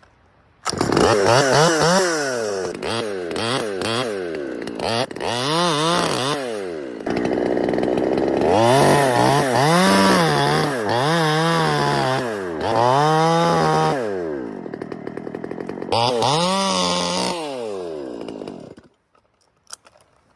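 Chainsaw running, its engine revving up and down over and over as it cuts into the tree, then cutting off suddenly near the end.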